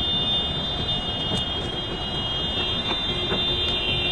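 Tsunami floodwater rushing as a steady noise, with a continuous high-pitched electronic tone over it.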